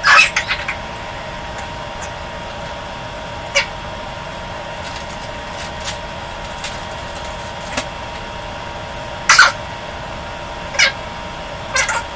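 A person eating hot-sauced chicken wings, making short, sharp mouth sounds about six times, spread out over a steady background hum.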